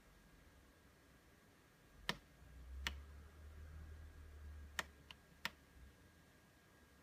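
About five faint, sharp plastic clicks of a finger pressing the push button on a Floureon jump-starter power bank, with a low rumble underneath in the middle.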